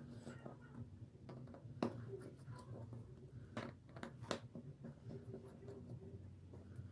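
Light clicks and scraping of a repair tool working against a smartphone's plastic frame and screen as the display is pried open, with a few sharper clicks near the middle. A low steady hum sits underneath.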